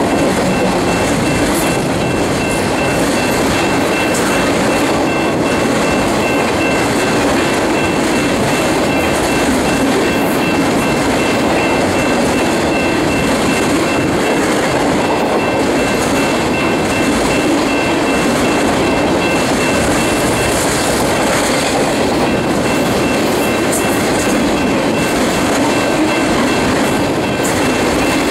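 Enclosed autorack freight cars rolling steadily past close by: a constant loud rumble of steel wheels on rail with a faint clickety-clack. A thin, steady high whine runs over it.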